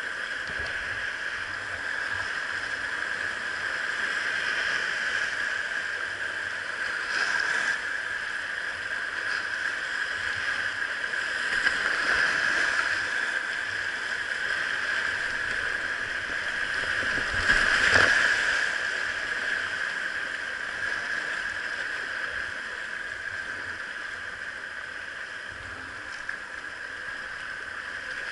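Whitewater river rushing past a kayak, a steady churning water noise that swells louder three times, most of all about two thirds of the way through.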